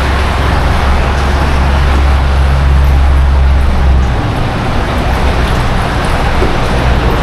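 Steady highway traffic noise, with a deep rumble that is heaviest for the first four seconds and then drops away.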